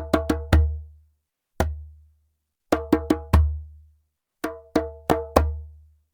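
Djembe played by hand in short groups of two to four strokes with pauses of about a second between them. Each stroke has a sharp attack over a deep low ring.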